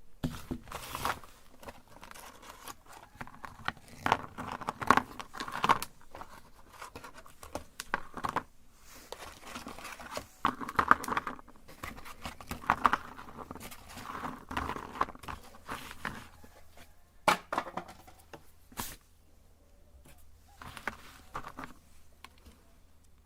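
Colourful cookies crunching and cracking as they are crushed in a meat grinder, in irregular bursts with short pauses.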